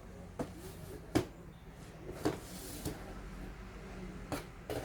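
Scattered clicks and knocks of a laptop's plastic casing and internal parts being handled and pried apart, about six over a few seconds, the loudest about a second in.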